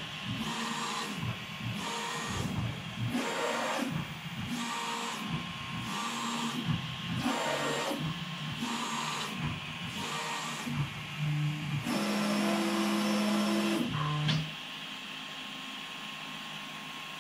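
Two Prusa i3 MK3S 3D printers, an original and a Fysetc clone, printing at the same time. Their stepper motors sing in changing pitches as the print head and bed move, over the steady whir of the cooling fans. About two thirds of the way in the motor tones stop and the sound drops to a quieter steady fan hum.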